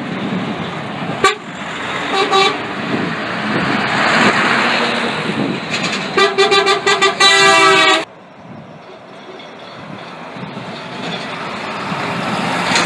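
Lorries driving past with their engines running, and truck horns sounding: a short blast about two seconds in, then a rapid string of short toots and a long blast that cuts off suddenly about eight seconds in. After that there is only quieter engine and road noise.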